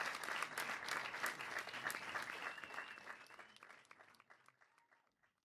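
Applause, a dense patter of many hands clapping, fading out over about four seconds.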